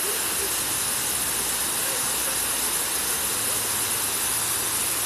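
A waterfall with several cascades pouring over a rock face into a pool, giving a steady, even noise of falling water.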